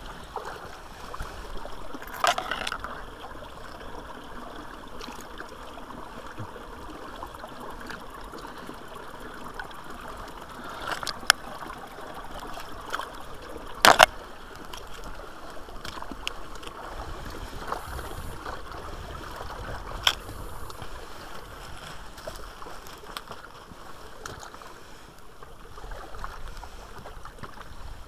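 Small forest brook running and trickling over stones, a steady water sound. A few short sharp knocks and clicks break through it, the loudest about halfway through.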